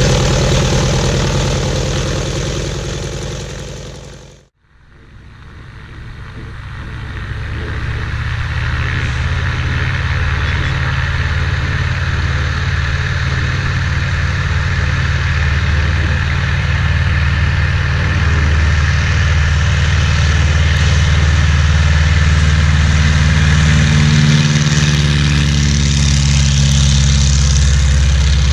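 Jacobs R-755-B2 seven-cylinder radial engine on a 1959 Cessna 195B, running steadily. The sound fades out to silence about four seconds in, fades back in over the next few seconds and runs on, with a shift in pitch near the end.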